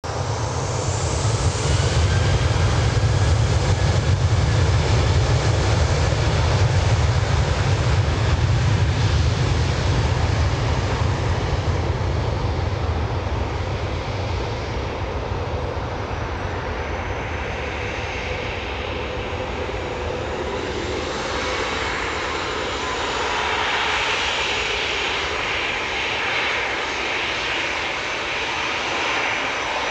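Boeing 737-800's twin CFM56-7B turbofan engines at departure power as the airliner rolls down the runway away from the listener. A heavy low rumble fills roughly the first half. It thins out into a higher, hissing jet noise with a faint high whine as the aircraft draws away.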